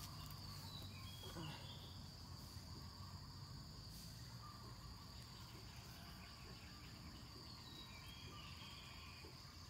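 Faint steady high-pitched insect drone over quiet outdoor background, with a couple of faint short chirps about a second in and again near the end.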